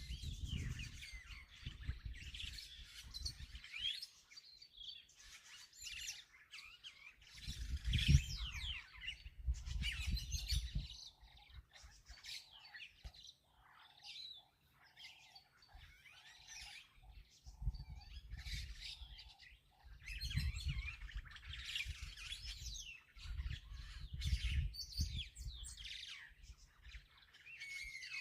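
Birds chirping and calling, with many overlapping short high chirps and trills and, in the middle, a run of short lower notes repeated about one and a half times a second. Bouts of low rumble come and go underneath.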